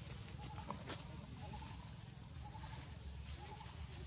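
Forest ambience: a steady high insect hiss with short, faint chirps recurring every second or so and a couple of light clicks about a second in.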